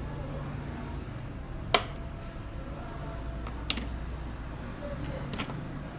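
Three sharp, light clicks of small metal tools or parts being handled during watch movement disassembly, about two seconds apart; the first is the loudest. A steady low hum runs under them.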